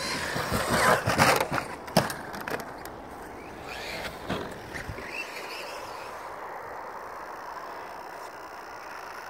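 Knocks and scuffs of a handheld camera carried at a run across a grassy field, over rushing wind noise on the microphone. After about five seconds the knocks stop, leaving a steady wind hiss.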